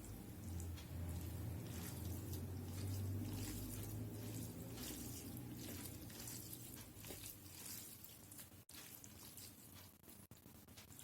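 Wet eating sounds: soft chewing and mouth smacks of rice and dal, repeated irregularly.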